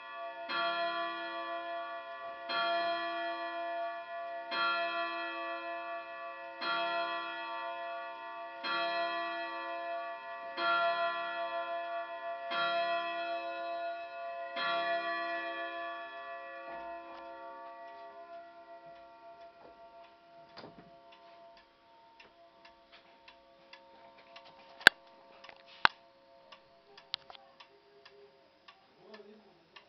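ODO carillon wall clock striking the hour: eight slow, evenly spaced ringing strokes about two seconds apart, each ringing on until the next. The ringing dies away, leaving the clock's ticking, with two sharp clicks near the end.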